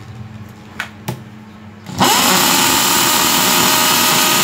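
Hitachi 420 W corded hammer drill, after two light clicks, switched on about two seconds in: it spins up quickly and runs steadily at full speed with no load, in hammer mode.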